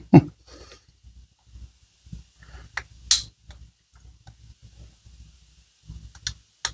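Small metal parts of a Caswell EDX folding knife clicking and tapping against each other as it is fitted back together by hand, with faint handling rustle; the sharpest click comes a little past three seconds in, a few more near the end.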